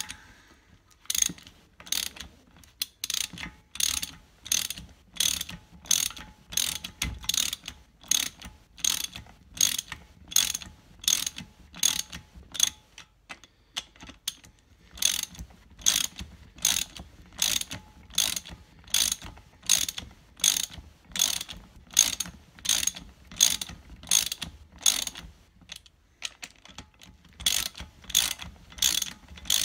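A hand socket ratchet clicks at about two a second as it runs the big-end cap nuts down onto the connecting rods, snugging them up before torquing. There is a short pause about halfway and another near the end.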